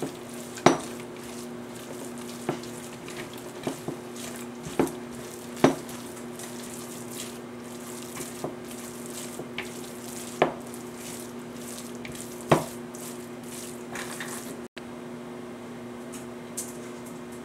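Red silicone spatula mixing a thick, moist batter in a plastic mixing bowl: soft wet squishing with sharp, irregular knocks of the spatula against the bowl's side, over a steady low hum.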